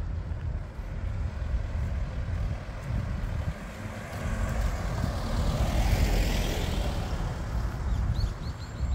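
Street traffic: a steady low rumble, with a vehicle passing close that swells and fades about five to seven seconds in. A quick run of high chirps comes in near the end.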